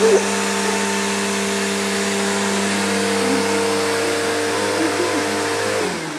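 Vacuum cleaner motor running with a steady hum and whoosh, then switched off near the end, its pitch falling as the motor spins down.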